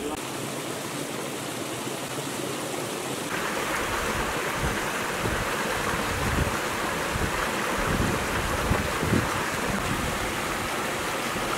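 Mountain beck rushing over rocks: a steady water noise that gets louder and fuller about three seconds in. Low rumbles of wind on the microphone come and go under it.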